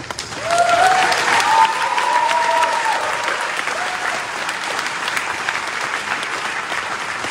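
Church congregation applauding in a large hall, the clapping swelling about half a second in and then holding steady. A few voices call out over it in the first few seconds.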